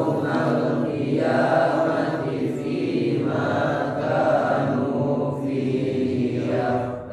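A man's voice chanting Qur'anic recitation (tilawah) in long, drawn-out melodic notes with brief pauses between phrases.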